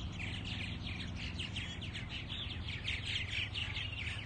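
A colony of purple martins chirping and chattering together, many short overlapping calls, over a faint steady low hum.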